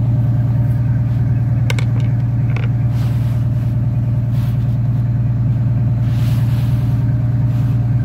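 Detroit Diesel 6-71 two-stroke inline-six marine diesel running steadily at an even idle, heard at its wet exhaust outlet by the waterline, with a couple of light clicks.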